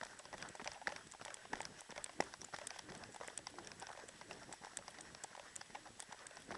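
Running footsteps of trail-running shoes on a dirt path: a quick, uneven patter of short, sharp footfalls, several a second.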